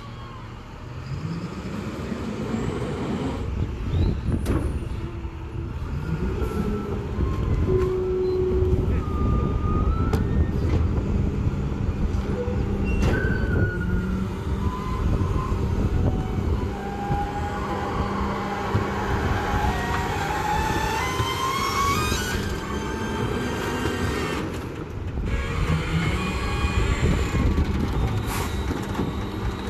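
Rear-loader garbage truck's diesel engine revving up several times to drive the hydraulic packer, with a long rising hydraulic whine as the packer blade cycles. A few sharp knocks come from trash bags and cans going into the hopper.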